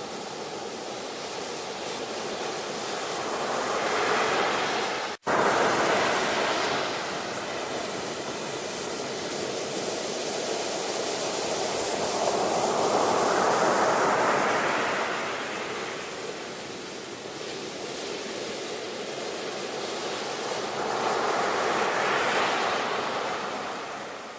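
Ocean surf: three waves break and wash back, each swelling and then fading. The sound cuts out for an instant about five seconds in.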